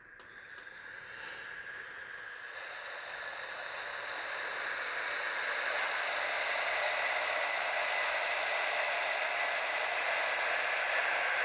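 Hand percussion imitating rain, such as a rain stick and seed-pod rattles: a steady rattling hiss that swells gradually louder over the first several seconds and then holds.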